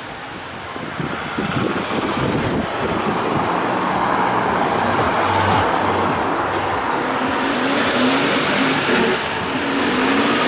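Road traffic at a pedestrian crossing: motor vehicles pass close by, the noise swelling about a second in. Near the end an engine's pitch climbs as a vehicle pulls away.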